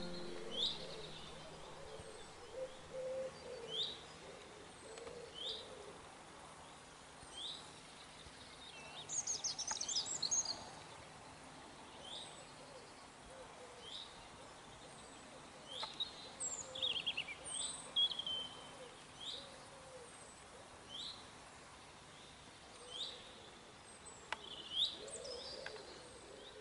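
Wild birds singing: a short sharp chirp repeated about once a second or so, with brief bursts of fuller song about ten seconds in and again past the middle, and a faint low cooing at the start and near the end.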